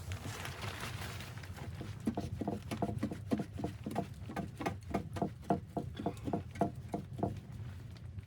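Footsteps crunching through snow, about two to three steps a second, starting about two seconds in, over a low steady rumble.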